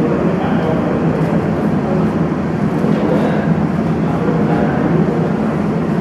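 Steady, loud low rumbling noise with no distinct events, like a running motor, fan or wind on the microphone.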